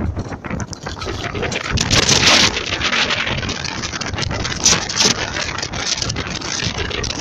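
Wind buffeting the microphone while riding a bicycle, with road noise underneath and louder gusts about two seconds in and again near five seconds.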